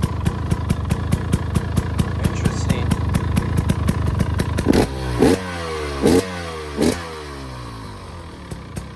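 2025 GasGas EC300's two-stroke engine idling through its stock pipe fitted with a new spark arrestor. About five seconds in the throttle is blipped four times in quick succession, each rev dropping back down to idle.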